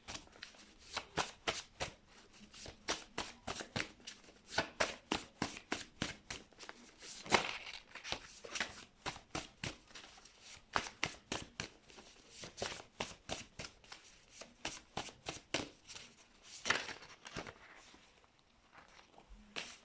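A deck of tarot cards being shuffled by hand: a steady run of quick card flicks and riffles, several a second, thinning out near the end.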